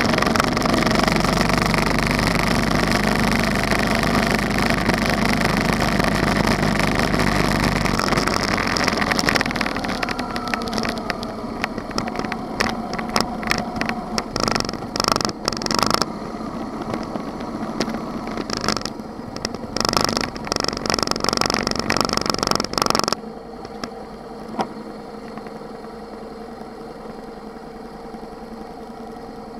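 Motorcycle riding at speed, its engine mixed with wind noise on a bike-mounted microphone. The bike slows and the noise turns uneven and bursty. About 23 seconds in it drops suddenly to a quieter, steady engine idle as the motorcycle stops.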